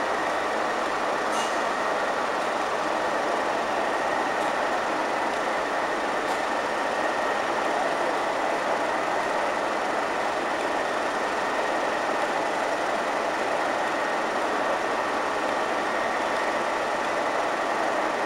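Class 37 diesel locomotive's English Electric V12 engine running steadily at low power, with a steady high whistle over the engine noise.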